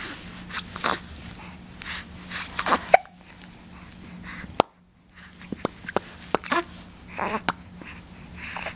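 Young baby making small mouth and throat noises: soft breathy sounds broken by several short, sharp clicks.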